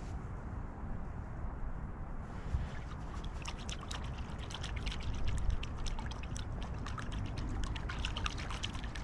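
Small creek running and trickling over its bed, with a steady low rumble underneath. From about two seconds in, a busy patter of small splashes and clicks.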